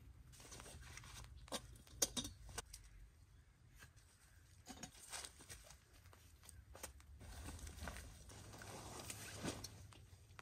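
Faint, scattered knocks, taps and rustling of a person moving about a camp on dry leaves and handling gear, with a cluster of sharp knocks about two seconds in. Near the end comes a longer rustle as he settles into a camp chair.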